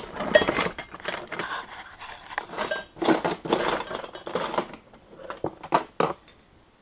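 Small brass fittings clinking and rattling as a hand rummages through a box of them: a busy clatter for the first four seconds or so, then a few separate clicks.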